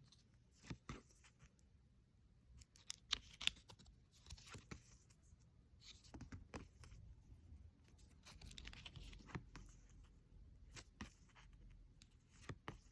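Quiet rustling of paper cards and their packaging being handled and slid apart, with scattered small taps and clicks.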